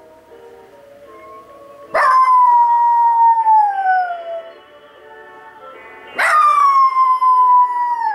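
A small dog howling twice along to a commercial's music, each howl a long wail that slides down in pitch, the second starting about four seconds after the first.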